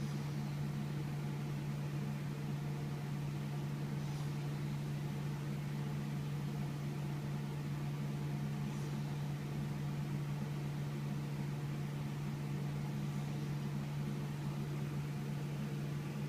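Faint snoring breaths of a sleeping dachshund, one about every four to five seconds, under a steady low hum that is the loudest thing heard.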